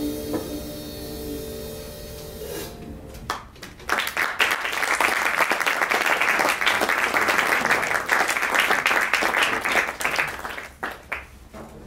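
A jazz quartet's last held chord rings out and fades, then the audience applauds for about seven seconds, the clapping dying away near the end.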